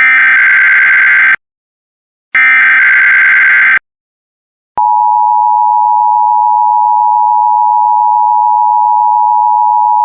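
Emergency Alert System SAME header: two bursts of rapid digital warbling data, each about a second and a half long with a second's silence between. About five seconds in, a steady EAS attention tone starts and holds, announcing that an alert message (here a required monthly test) will follow.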